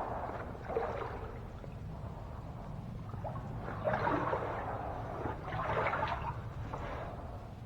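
Floodwater sloshing and splashing in a few swishes, about one, four and six seconds in, over a low steady rumble.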